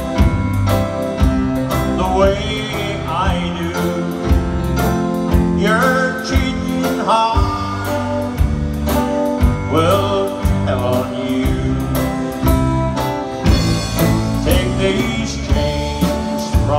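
Live band playing: a man singing lead into a microphone over a steady drum beat and electric guitar, amplified through PA speakers.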